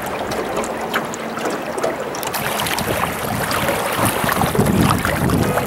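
Lake water lapping and splashing against the hull of a small boat, with wind on the microphone; a steady wash of choppy water full of small irregular slaps, a little louder in the second half.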